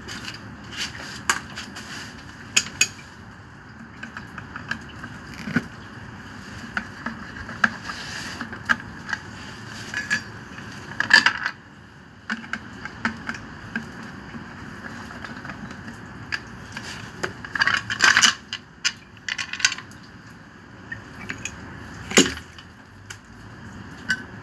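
Irregular clicks, taps and small knocks of hand work on a peripheral water pump's terminal box: the cover being taken off and wires handled. A few louder knocks come around the middle and near the end, over a steady background hiss.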